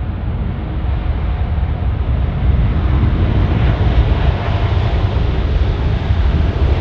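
Boeing 787-9's GEnx turbofan engines in reverse thrust during the landing rollout: a loud, low rumble that builds about two and a half seconds in and holds.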